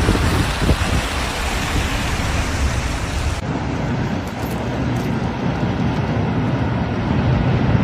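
Steady outdoor noise: a low rumble with hiss. Its character changes abruptly about three and a half seconds in.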